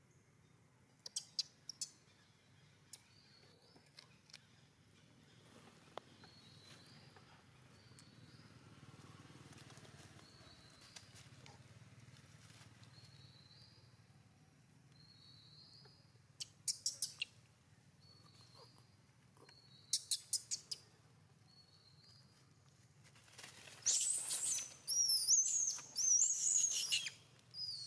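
Long-tailed macaque screaming in loud, high, wavering calls for about four seconds near the end. Earlier, only faint repeated chirps and three short trains of quick high pips.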